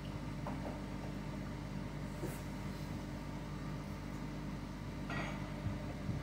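Panda portable spin dryer spinning a wet load at about 3,200 rpm: a steady motor-and-drum hum with several constant low tones.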